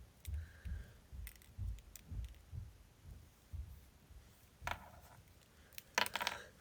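Faint, irregular low thumps and a few light clicks. Near the end, a quick run of sharp, noisy breaths as a woman winds up to a sneeze.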